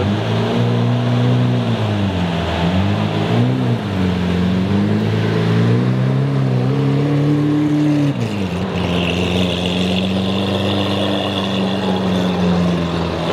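Lamborghini Aventador's V12 engine revving at low speed as the car pulls away, its pitch rising and dipping several times, then settling into a steady drone about eight seconds in. A high steady whine joins shortly after.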